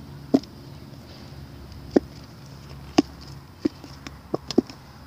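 Handling noise close to the microphone: scattered sharp taps and clicks, about six spread over five seconds, over a faint steady low hum.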